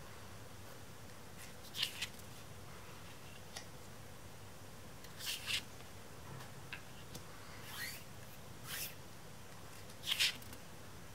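Trading cards handled by hand: about five short, soft swishes as cards slide off the stack and are laid down, with a few faint ticks between.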